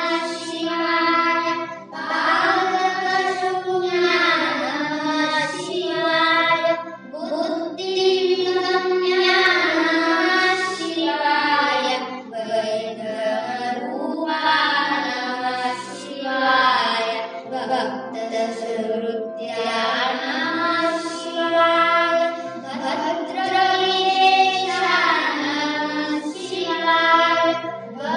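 Two boys singing a Kannada devotional song together into a microphone, in long held and bending phrases, over a steady low drone.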